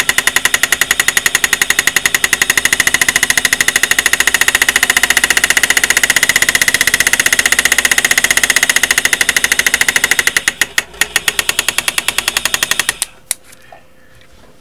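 Power-assisted hand engraving graver hammering rapidly and evenly as it cuts an outline into the end of a steel maker's mark punch. The strokes falter about ten seconds in and stop about thirteen seconds in.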